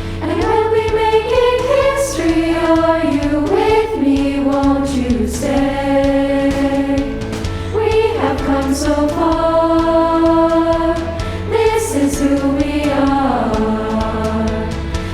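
Girls' choir singing held, gliding notes in parts over instrumental accompaniment.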